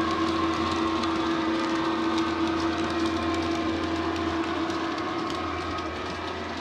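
Class 68 diesel locomotive engine sound, recorded from the real locomotive, played by a DCC sound decoder through the model's speaker: a steady drone with a hum and fixed tones, and faint clicks from the model wagons' wheels on the track. It slowly fades near the end as the train moves away.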